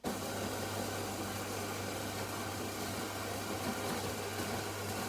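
Coffee machine running steadily with a low hum under a loud hiss, cutting off abruptly about five seconds in.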